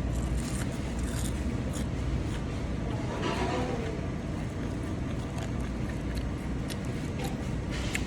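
Someone eating a burger: chewing and mouth sounds with scattered short clicks, over a steady low rumble.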